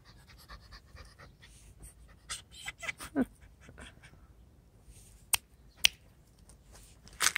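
White puppy panting, with three sharp clicks at about five and a half, six and seven seconds in, the loudest sounds.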